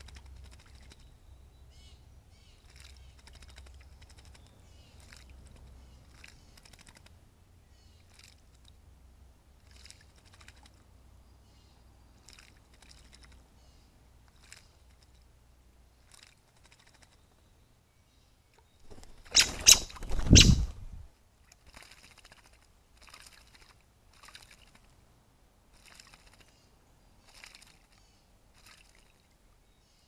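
Birds bathing in a shallow pool, first an American robin and then a blue jay, splashing in short flurries of flicked water about once a second, with one much louder flurry about twenty seconds in.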